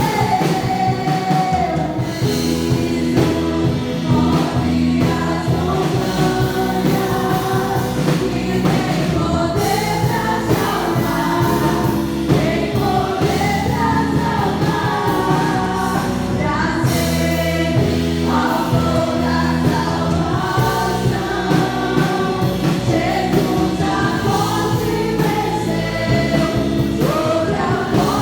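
Live gospel worship music: a group of voices singing a praise song over a band with steady bass and chords.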